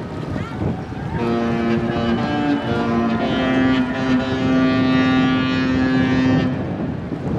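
Disney Fantasy's musical ship horn sounding a short phrase of several chords, changing pitch a few times and then holding one long note before cutting off, for about five seconds in all. Wind noise on the microphone runs underneath.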